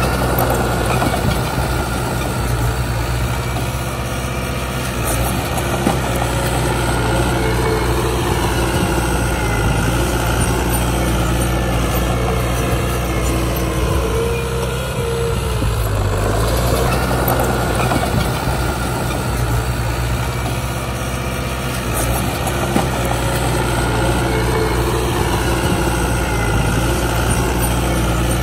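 Heavy diesel engine of earthmoving machinery running continuously, its note rising and falling a few times as it works under load.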